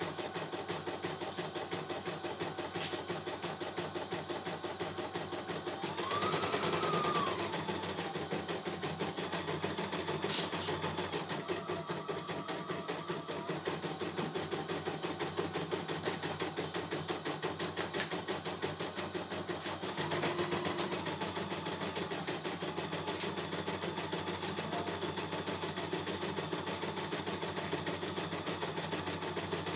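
CNY E900 computerized embroidery machine stitching a design, its needle clattering in a fast, even rhythm. Twice, about six seconds in and again around twenty seconds, it briefly gets louder with a rising-and-falling whine.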